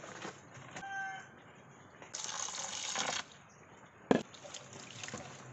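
Grated coconut tipped off a woven bamboo tray into a plastic basin of water for squeezing out coconut milk: a rush of splashing for about a second, starting two seconds in, then one sharp knock a little after four seconds.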